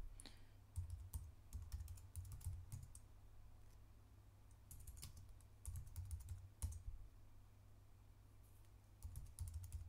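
Computer keyboard typing, in three short runs of keystrokes with pauses between them.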